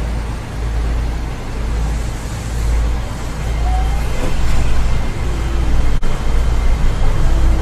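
Seibu 8500 series 'Leo Liner' rubber-tyred guideway train running along its concrete track, heard from inside the cab: a steady low rumble and running noise, with a few faint short tones sliding in pitch.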